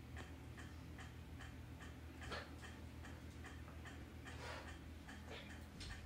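Faint, even ticking, about two and a half ticks a second, over a low steady hum, with a few louder soft scuffs in the second half.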